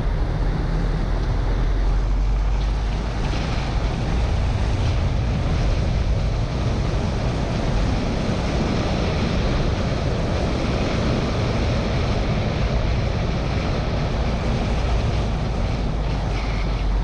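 Car driving at road speed, heard from a camera over its bonnet: steady wind rush on the microphone over a low rumble of engine and tyres, with no gear changes or sharp events.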